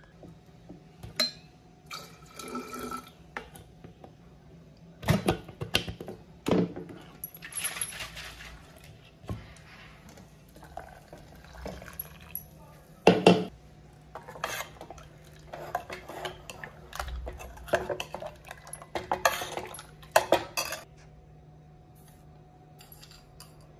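Steel utensils clinking and knocking against a stainless steel pot in a series of sharp strikes, with a thin curry mixture poured in from a mixer jar and stirred with a steel ladle.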